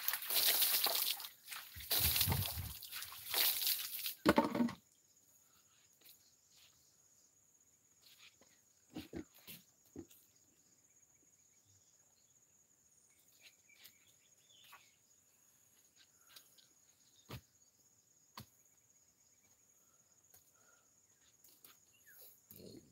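Steady high-pitched drone of insects such as crickets. Over it, loud rustling and scraping noise fills the first four or five seconds, then scattered light knocks and footsteps.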